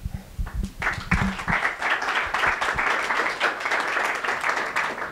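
Audience applauding: dense clapping from a room full of people starts about a second in and thins out near the end. A few low thumps come just before it.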